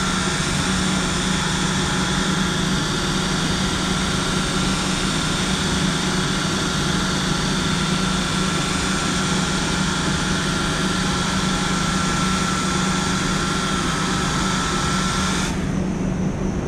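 Machine polisher running steadily on a car door's paintwork, with a constant whine over its hiss; it switches off abruptly near the end, leaving a low steady hum.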